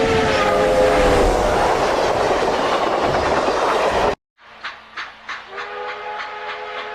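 Loud multi-note train whistle over a heavy rushing noise; the whistle sags a little in pitch and fades into the rush, and the whole sound cuts off abruptly about four seconds in. After a short gap, a quieter train sound comes in: regular knocks about three a second, with a steady whistle chord joining them.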